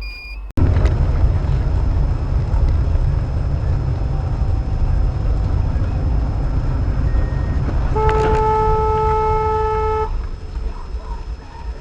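A car horn sounds one steady blast of about two seconds, over a steady low rumble of engine and road noise from a moving car.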